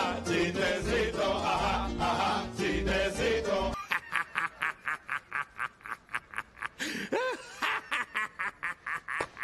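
Several men laughing heartily with music underneath. About four seconds in, this changes to one man's loud laughter: an even string of short 'ha' bursts, about three a second, broken once by a drawn-out wail of laughter.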